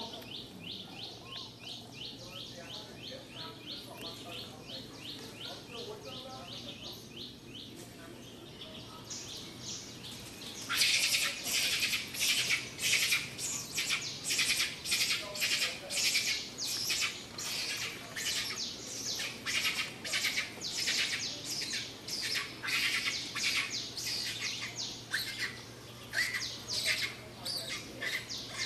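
High-pitched chirping in a steady, even rhythm: a fast, faint pulsing at first, then from about eleven seconds in a louder chirp repeating about twice a second.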